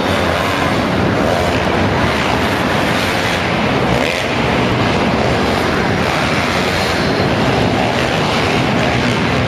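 Engines of several small four-stroke mini motocross bikes running around an indoor supercross track. The engines blend with the arena's echo into a loud, steady noise with no single engine standing out.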